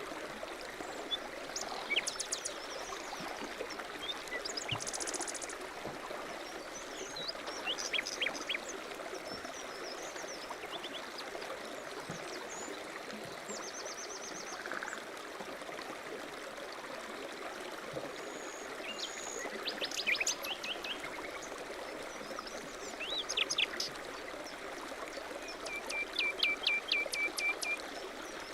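A stream running steadily, with small birds chirping and trilling over it at intervals; a run of about eight quick notes comes near the end.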